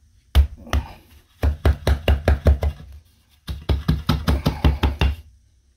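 Gloved hand tapping a spirit level down into a freshly packed cement mortar bed to seat it: two single knocks, then two quick runs of taps, about five a second.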